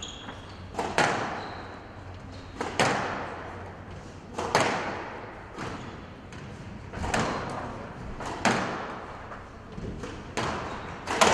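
Squash rally: sharp cracks of racket striking ball and ball hitting the court walls, about every second and a half to two seconds, each ringing briefly in the court's echo.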